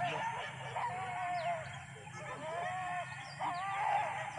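Hunting dogs yelping and baying during a chase, a string of wavering, drawn-out cries.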